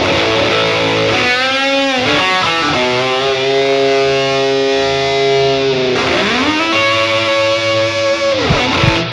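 Novo Serus J electric guitar played through heavy distortion: long held lead notes with wide string bends sliding up and down in pitch, stopping just before the end.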